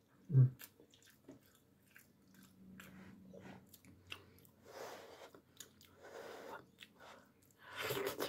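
A person chewing food with wet mouth noises, with a short hum about half a second in and faint clicks scattered through.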